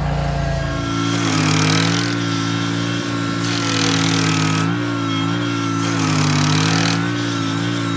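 Stump grinder engine running hard, its pitch sagging and recovering several times, with a surge of harsher, noisier sound every two to three seconds as the cutter wheel bites. The deep low rumble drops away about a second in.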